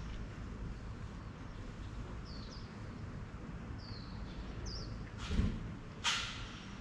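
Birds giving short, high chirps that drop in pitch, four of them spread over a few seconds, over a steady low street hum. About five seconds in come two louder noisy sounds a second apart, the second a sharp hiss that fades.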